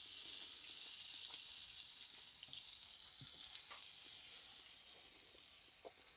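Butter sizzling in a frying pan under a flour tortilla: a soft, high hiss that slowly fades, with a few faint light clicks.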